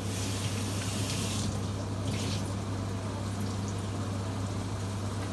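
Water running from a kitchen tap for about a second and a half, then a second short gush, over a steady low hum.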